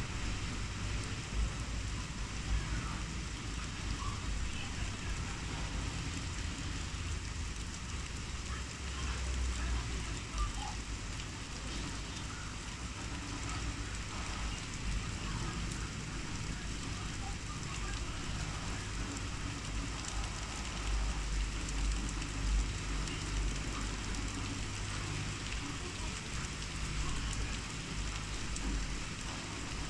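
Steady rain falling, an even hiss of many drops. Underneath it runs a low rumble that swells twice, about nine seconds in and again a little past twenty seconds.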